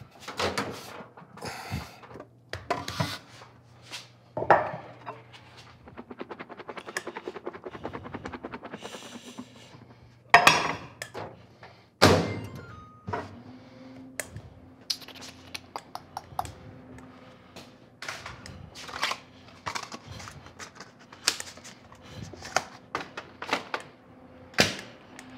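Knocks and thuds of pie dough being worked on a wooden board and a glass pie dish being handled and set down, with a quick run of rapid ticks partway through and two sharper knocks just after the middle.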